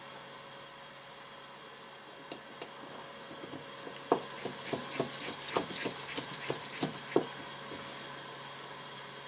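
Small clicks and knocks from handling tool parts and a screwdriver during a power-tool repair: two light clicks, then about a dozen quicker sharp clicks over some three seconds, over a steady faint hum.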